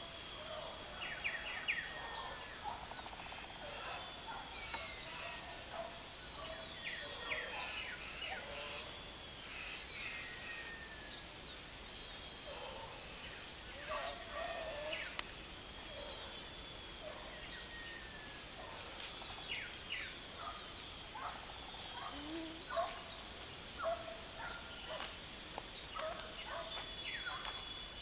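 Many short bird chirps and calls from a feeding flock, scattered and overlapping, over a steady high-pitched insect buzz.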